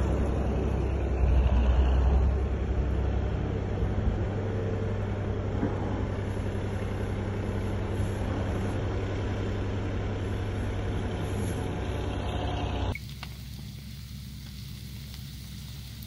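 Excavator's diesel engine running steadily with a low drone. About thirteen seconds in it stops suddenly, giving way to a quieter, even hiss of a pit fire burning.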